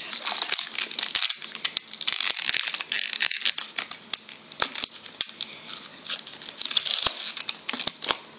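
Toy packaging being ripped open and crinkled by hand: a dense, continuous run of crackling with many sharp clicks.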